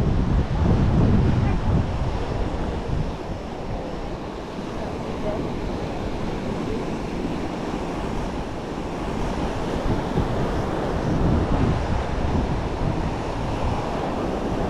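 Surf washing onto a sandy beach, with wind buffeting the microphone. The low rumble swells louder near the start and again about eleven seconds in.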